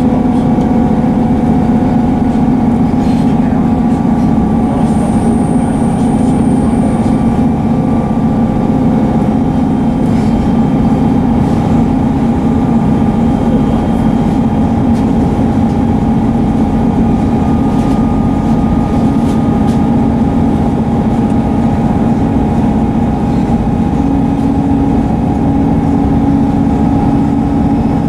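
A Class 158 diesel multiple unit running under power, its underfloor diesel engine drone and rail rumble heard from inside the carriage. A thin high whine sounds for a couple of seconds about five seconds in. Near the end the engine note steps up slightly.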